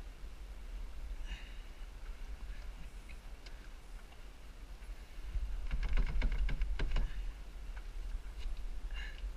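Wind buffeting the camera microphone on a small sailboat gets under way, as a steady low rumble. A quick run of knocks and clatters comes a little past halfway, and there is a short squeak about a second in and again near the end.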